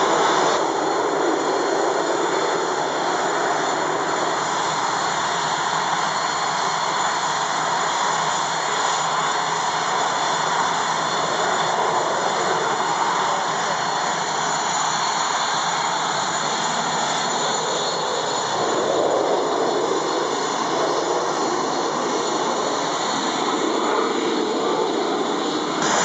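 Northrop F-5E Tiger II jet fighters' twin turbojets running on the ground as they taxi: a steady, even rush of jet noise with a high, constant whine on top.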